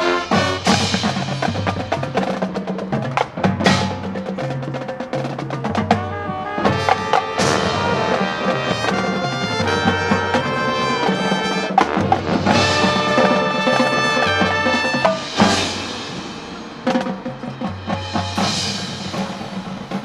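Marching band playing its field show: pitched ensemble music with strong percussion throughout, including drums, snare rolls and wood-block-like strikes. It drops to a quieter passage near the end.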